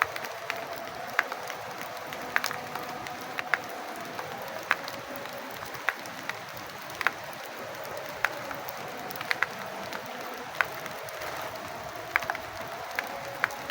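Rain falling in a steady hiss, with single loud drips of water landing about once a second at irregular spacing, and a faint steady tone underneath.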